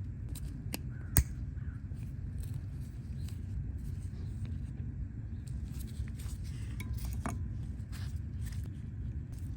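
Light metallic clicks and taps from handling brake pads with their metal shims and retaining clips, with one sharp click about a second in, over a steady low rumble.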